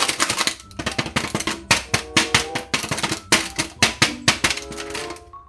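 Stiff plastic toy packaging being handled and pulled open: a rapid, irregular crackling and clicking, dense at first and thinning toward the end.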